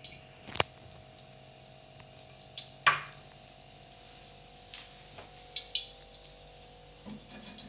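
Kitchen clatter: a ceramic bowl and utensils knocked and set down on a tiled counter, a few sharp clinks with the loudest, slightly ringing one about three seconds in and a quick pair near the end, over a faint steady hum.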